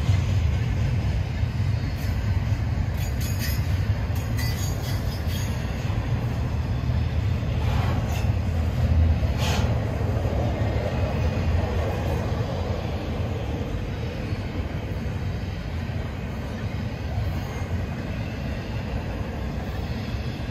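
Double-stack container freight train rolling past close by: a steady low rumble of wheels on rail. A few brief high-pitched squeals come through in the first half.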